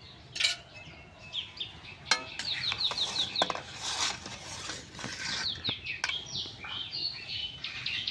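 A steel spoon clinking a few times against a metal wok as it stirs duck eggs boiling in water. Birds chirp throughout.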